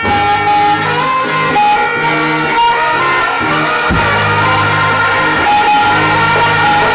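Music: an instrumental passage with guitar notes over a repeating bass line, with a deep thump about four seconds in.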